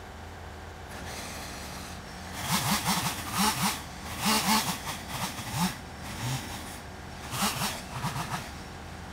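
1962 Volvo BM (Bolinder-Munktell) backloader's engine idling steadily. Over it come two spells of loud, irregular rattling and scraping, starting about two and a half seconds in and again near the end.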